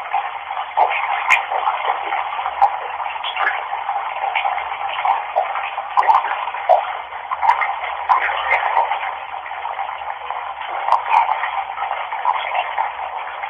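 Tap water running steadily, an even rushing hiss with small irregular splashes and a few faint clicks.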